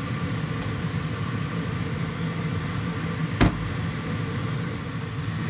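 Steady low hum of a running fan motor, with one sharp knock about three and a half seconds in.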